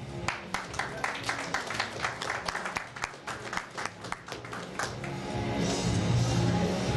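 Clapping from a small audience, many quick, uneven claps that die away after about five seconds; background music then comes up.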